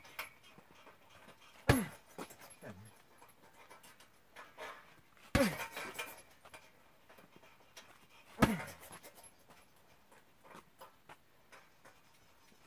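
Heavy punching bag struck three times, about three seconds apart, each sharp thud paired with a short forceful exhale that drops in pitch.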